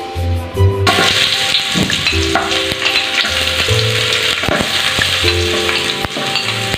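Sliced onions hitting hot oil in an aluminium pot, setting off a sizzle that starts suddenly about a second in and carries on steadily.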